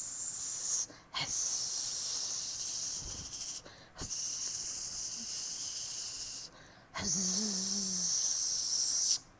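A man hissing through his mouth to imitate a snake: four long, high-pitched hisses with short breaks between them, the last with a faint hum of voice in it.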